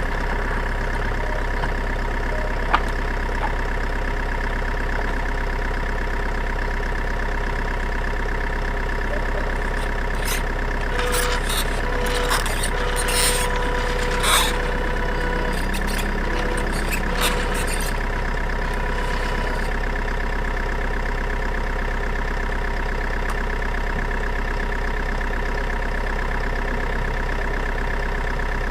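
Truck engine idling steadily. About ten to eighteen seconds in, a run of clicks and knocks sounds over it.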